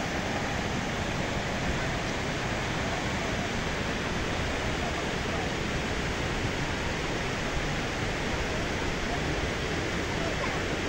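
Water of a small mountain waterfall and stream rushing steadily.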